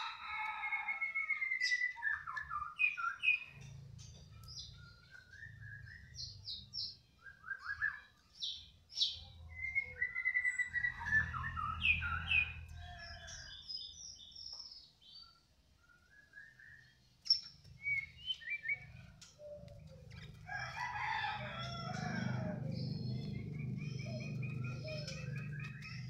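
Domestic canary singing in scattered bursts of chirps and quick trills, with a low rumble underneath that grows louder near the end.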